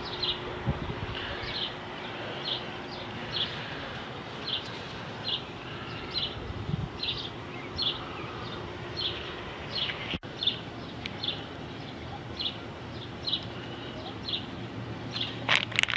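Short high chirps repeating steadily, about one every second or so, over a steady outdoor background hiss. A few sharp clicks come near the end.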